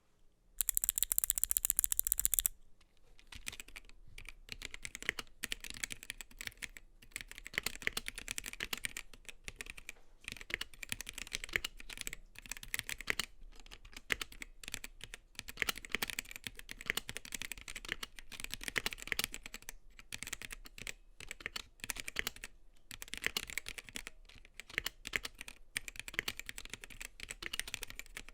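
Typing on a Gamakay K77 mechanical keyboard with Gateron Black linear switches and ABS doubleshot keycaps: a steady run of key clicks with short pauses. A louder, denser clatter fills the first two seconds or so.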